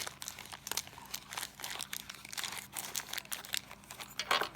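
Packaging crinkling and rustling, with scattered small clicks and taps as lock parts and items are handled.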